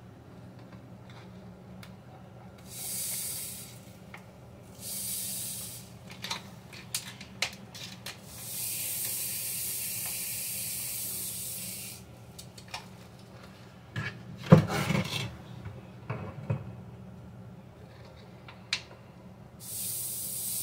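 Granulated sugar poured from a plastic measuring cup through a funnel into a plastic juice jug, hissing in four pours, the longest about four seconds near the middle. Small plastic clicks and taps come between the pours, and a louder knock about two-thirds of the way through is the loudest sound, over a steady low hum.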